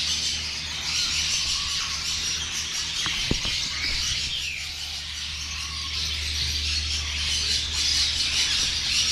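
Many caged birds chirping and squawking together in a dense, continuous chatter, over a steady low hum. A single sharp knock sounds about three seconds in.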